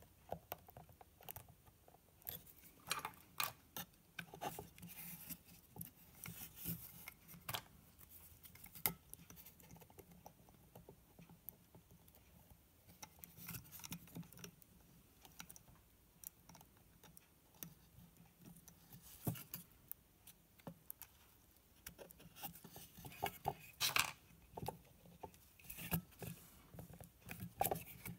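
Handling noise: a small circuit board and plastic Dupont wire connectors being pressed, turned over and laid on a wooden bench, making faint irregular clicks, taps and scrapes, busiest about three seconds in, around the middle and near the end.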